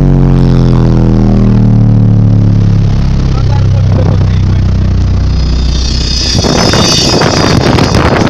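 Car engine heard from inside the cabin, its pitch sliding steadily down as the revs fall. About six seconds in, a loud rushing, fluttering noise takes over.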